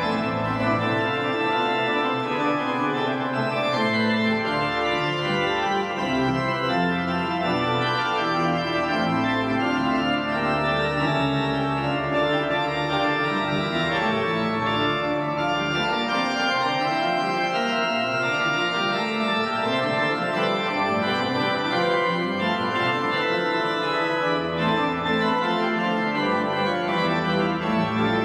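Pipe organ playing a full, dense passage of sustained chords over a moving bass line, steady in loudness throughout.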